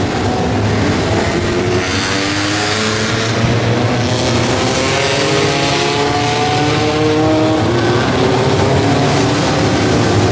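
Honda Civic Type-R race car's four-cylinder engine accelerating through the gears. It revs up several times, with a drop in pitch at each change, and a hiss swells in the middle.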